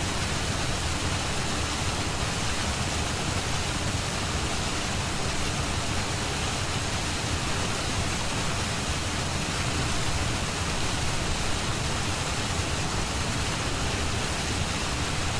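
Steady pink noise, an even rain-like hiss that does not change, used as the masking track of a subliminal recording.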